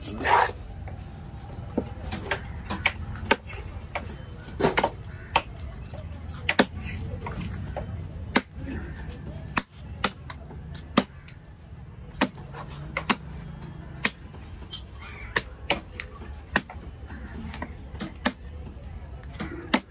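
Large knife chopping fish into pieces on a wooden log chopping block: sharp, irregularly spaced chops of the blade striking through into the wood, the loudest just at the start. A steady low market hubbub runs underneath.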